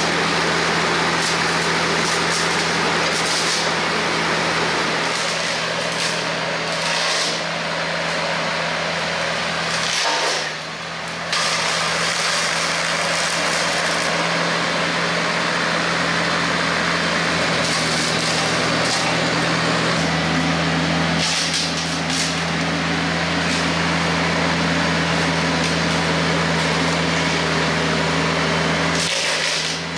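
Tractor diesel engine running steadily under load, driving a PTO hydraulic power pack for a Hardee Brush Tiger front-mounted rotary cutter. The cutter shreds brush and saplings with brief louder swishes every few seconds.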